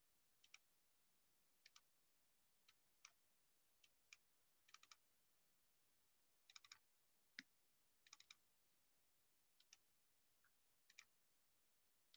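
Faint clicking of computer keys, in small irregular clusters of two to four, over near-silent room tone.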